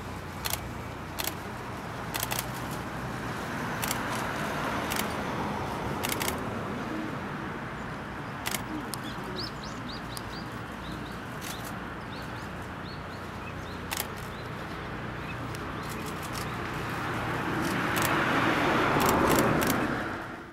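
Outdoor background noise: a steady hiss over a low hum, with sharp clicks scattered through and a few faint, high, short bird chirps around the middle. Near the end the noise swells louder, then cuts off suddenly.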